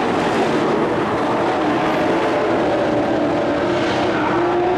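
Several dirt-track race trucks' engines running hard around the oval: a steady, loud engine drone with pitches that drift up and down as the trucks pass.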